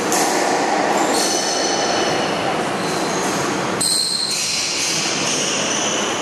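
Squash shoes squeaking in high, drawn-out squeals on a wooden court floor as players chase the ball during a rally, with a few sharp knocks of racket and ball on the walls.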